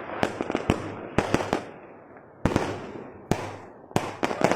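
Fireworks going off: about a dozen sharp bangs at uneven intervals, some in quick clusters, each trailing off as it dies away.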